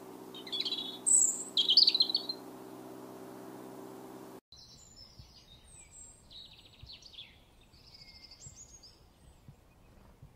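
European robin singing a few short, high, warbling phrases in the first couple of seconds, over a steady low hum. After a sudden change about halfway through, fainter chirping and twittering from small birds.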